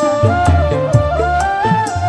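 Band music: a stepping lead melody over a steady drum beat.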